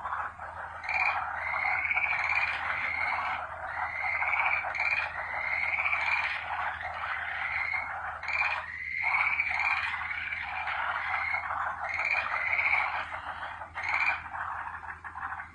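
A chorus of many frogs calling continuously, a dense trilling mass with short rising calls repeating over it.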